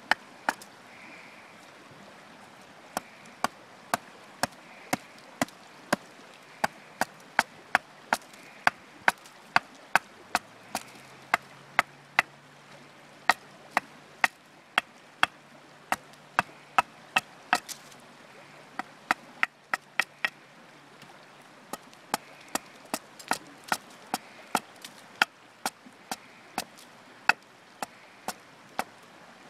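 Axe chopping into a wooden stave to hew it flat into an axe handle blank: a long run of sharp chops, about one or two a second, with short pauses near the start and about two thirds of the way through.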